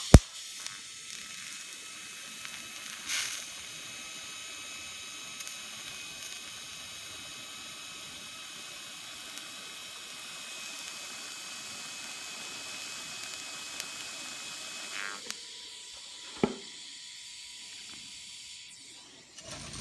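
TIG welding arc, struck with a sharp crack and then running as a steady hiss with a faint high whine for about fifteen seconds before cutting off; a single knock follows a second or so later.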